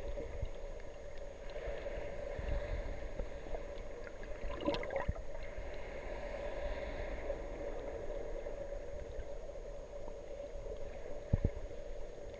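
Underwater ambience picked up by a submerged camera: muffled water movement under a steady hum. There is a short rustle of bubbles or movement about five seconds in and a sharp knock about eleven seconds in.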